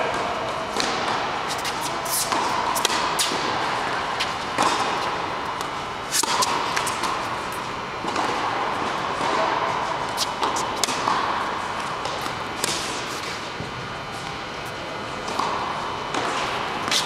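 Tennis ball struck by rackets and bouncing on a hard court during a rally: sharp pops every second or so at an uneven pace, echoing in a large indoor tennis hall over a steady background din.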